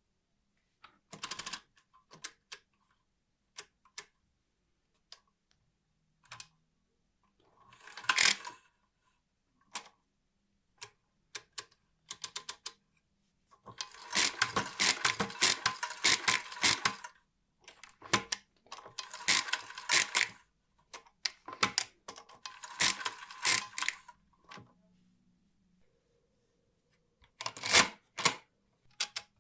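Schubert arithmometer's metal mechanism clicking and ratcheting as it is worked by hand: a few single clicks, then several bursts of rapid clicking a second or more long.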